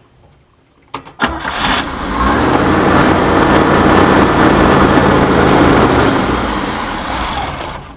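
A 1966 Chevy van's 230 straight-six, fitted with a Weber 32/36 two-barrel carburetor, starts about a second in and runs fast and steady before dying away near the end. The high revs come from a vacuum leak in this carburetor setup, as the owner found.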